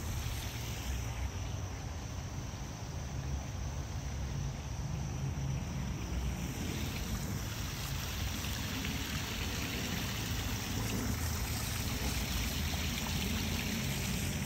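Backyard koi pond's stone waterfall running: a steady splashing of water spilling over rocks into the pond.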